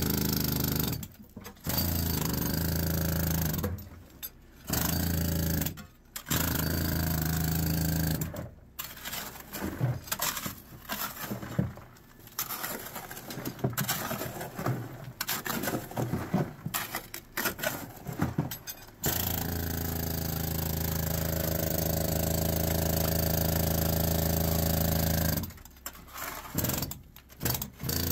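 Mucking machine loading broken ore into a mine skip bucket by bucket. Its steady drone runs in stretches that stop and start, and in the middle there is a long spell of irregular clattering and knocking of rock.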